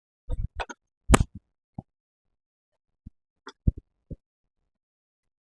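Scattered knocks and clicks of tools and parts being handled in a workshop: a quick cluster in the first second and a few more about three to four seconds in, with silence between.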